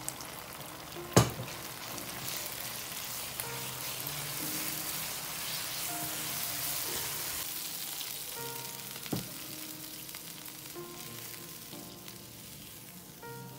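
Black bean sauce sizzling and frying in a pan as a spatula stirs it, with two sharp knocks, the louder about a second in and another about nine seconds in.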